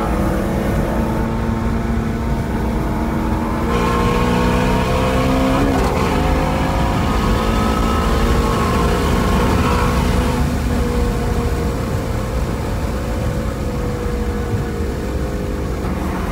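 Shelby GT350's 5.2-litre flat-plane-crank V8 pulling hard at highway speed, heard from inside the cabin: the engine note steps up a few seconds in, climbs steadily in pitch, then eases off and falls for the second half.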